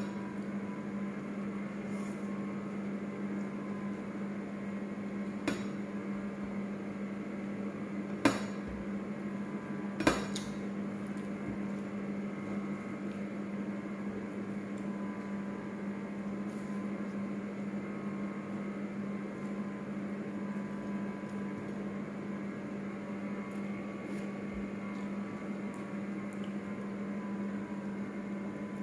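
Eating by hand from ceramic plates, with three sharp clinks of a plate, about a fifth, then two sevenths and a third of the way in, over a steady low hum.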